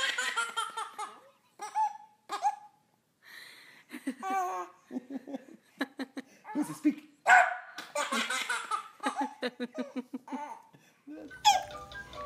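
A small dog barking in short sharp yelps, twice loudly, and a baby giggling in quick repeated bursts of laughter between the barks. Music starts near the end.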